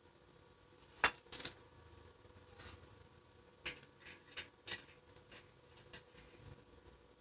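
Faint, irregular light clicks and clinks of small hard objects being handled, about seven in all, the sharpest about a second in, over a faint steady hum.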